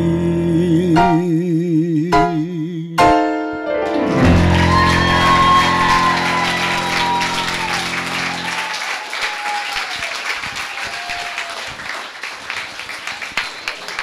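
An elderly woman's singing voice holds the final note of a song with wide vibrato over backing music. A closing chord sounds about three seconds in, and the audience breaks into applause that runs on as the chord dies away.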